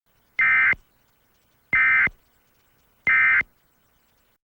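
Emergency Alert System end-of-message data bursts: three short, identical bursts of warbling two-tone digital code about a second apart, signalling that the alert message is over.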